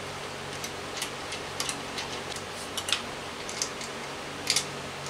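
Irregular light clicks and taps from bolts and plastic cable clips being handled on a Nissan Leaf electric drive unit, over a faint steady hum.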